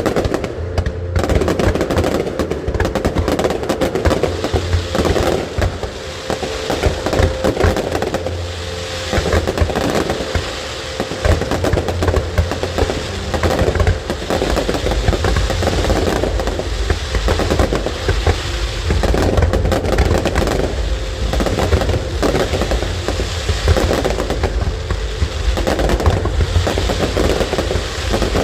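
Fireworks going off in rapid, continuous volleys of bangs and crackle.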